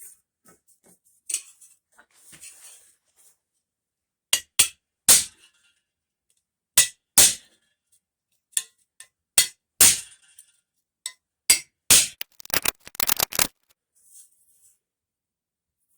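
Hammer striking steel in a string of sharp, ringing blows, sparse at first and then a quick run of about eight strikes near the end.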